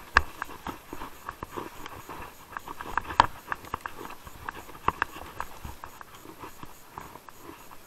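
Mountain bike rattling as it rides down a rough forest trail: a run of irregular knocks and clicks as the wheels jolt over stones and roots, the sharpest about three seconds in and again near five seconds.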